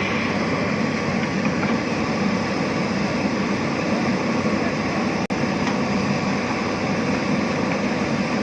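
Heavy diesel construction machine engine running steadily, a dense rumble with no clear rhythm, cut by a split-second dropout about five seconds in.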